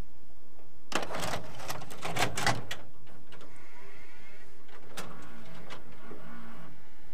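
Toshiba TV/VCR combo's tape mechanism clicking and clattering for about two seconds, then a steady mechanical whirring with a sharp click about five seconds in.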